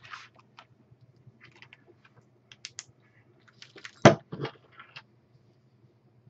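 Light clicks, taps and rattles of small hardware being handled, with one louder knock about four seconds in followed by a smaller one.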